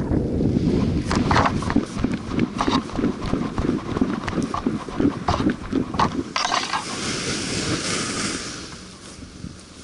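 A paraglider pilot's footsteps thudding on grass during the landing run, about two a second, with wind rumble on the microphone fading away. Then a rustling hiss as the nylon wing collapses onto the grass, dying away near the end.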